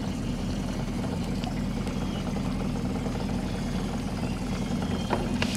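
A boat's outboard motor idling with a steady low hum.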